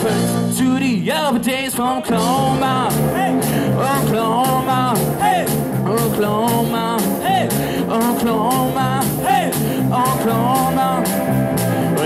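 Live rockabilly band playing: a walking electric bass line, a steady drum beat, and electric guitar, with a pitched lead line that bends and wavers over the top.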